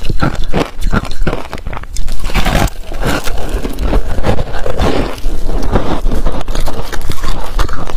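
Close-miked crunching and chewing of a block of ice coated in passion fruit pulp, a rapid, continuous run of crisp, crackly crunches.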